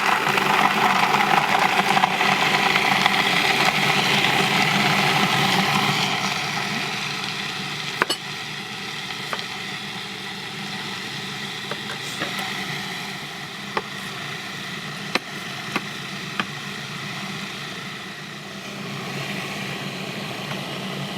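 Electric blender running on sprouted garbanzo beans, onion, garlic and lemon juice, switched on suddenly and loudest for the first six seconds or so, then settling to a slightly lower steady run as the mixture breaks down, with a few sharp ticks of pieces hitting the blades.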